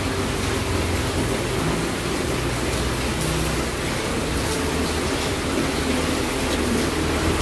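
Steady background noise: an even hiss over a low hum, with no clear single event.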